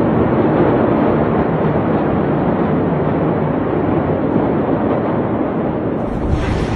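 A loud, steady rumbling roar of noise with no separate bangs or voices. Near the end it turns fuller, with added deep rumble and hiss.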